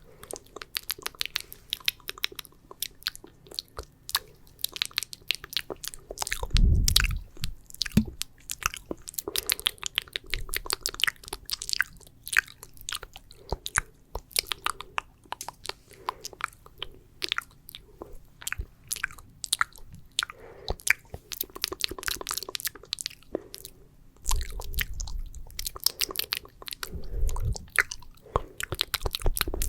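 Wet ASMR mouth sounds close to the microphone: sticky, saliva-laden clicks and smacks coming irregularly and densely. A few low muffled thumps come in, one about seven seconds in and a cluster near the end.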